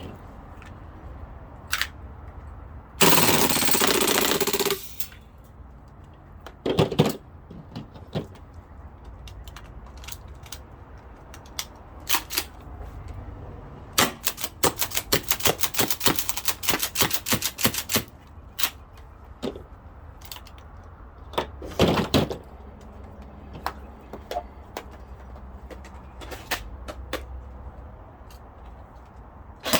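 Airsoft guns firing: short full-auto bursts, a rapid string of shots lasting about four seconds near the middle, and scattered single shots and handling clicks.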